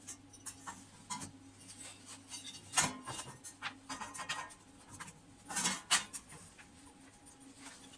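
Scattered light clicks and short scrapes of small parts and tools being handled, the loudest about three seconds in and again near six seconds, over a faint steady hum.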